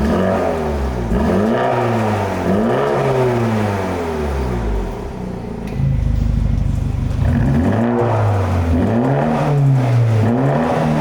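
Mini John Cooper Works Countryman's turbocharged four-cylinder engine revved repeatedly through a Remus aftermarket exhaust, the pitch rising and falling with each blip and holding a steady low drone for a moment in the middle.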